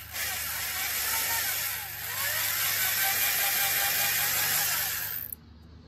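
Electric drill running under load as its bit bores into the stem of a carved pine bear's eye. The motor pitch wavers, it dips briefly about two seconds in, and it cuts off suddenly near the end.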